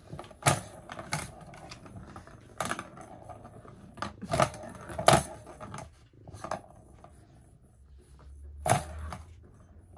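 Plastic balls rolling and rattling around the track of a circular plastic cat toy as a cat bats at them. Sharp clacks come at irregular intervals, the loudest just after 4 and 5 seconds in and near 9 seconds.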